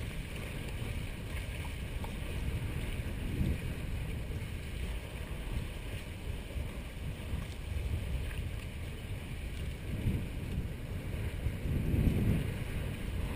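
Wind buffeting the microphone over water rushing along the hulls of a Hobie 18 catamaran under sail, a steady low rumble that swells with a couple of stronger gusts near the end.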